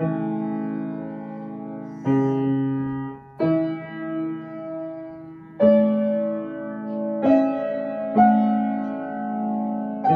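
Grand piano played solo: slow chords struck about every one to two seconds, each left to ring and fade.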